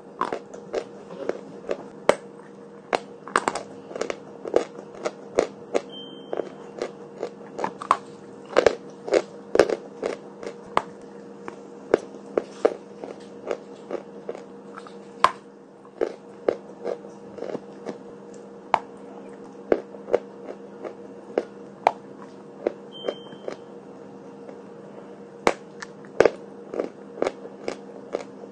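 Dry chalk being bitten and chewed close to the microphone: a long run of sharp, dry crunches, roughly two a second, irregular, with short pauses between bites.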